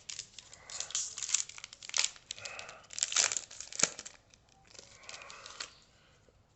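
Plastic wrapper of a trading card pack being crinkled and torn open, in several bursts of crackling with a couple of sharp snaps over the first four seconds, then softer rustling.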